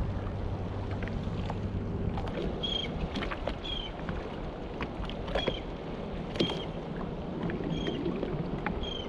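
Water lapping and slapping against the hull of a drifting jet ski, with wind on the microphone. A low steady hum stops about two seconds in, and after that short, high, falling chirps repeat about once a second.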